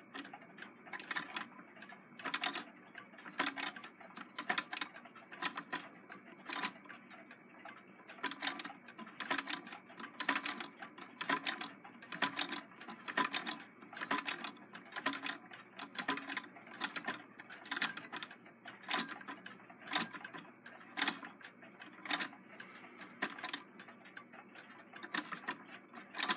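Singer 66 lock-stitch sewing machine running slowly through thick fabric, its mechanism clicking about once a second, sometimes in close pairs, with each stitch.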